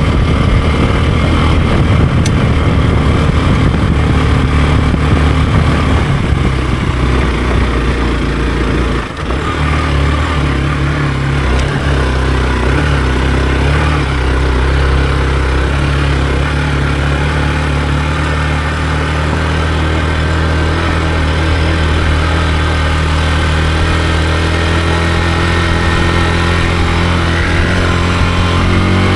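Hero XPulse 200 4V's single-cylinder engine running while riding. The engine sound dips briefly about nine seconds in, then holds a steady note.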